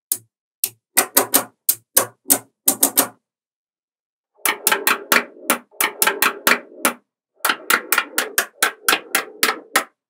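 Magnetic balls clicking as blocks of them snap against each other and onto the table, a rapid series of sharp clacks in three runs with short breaks about three and seven seconds in.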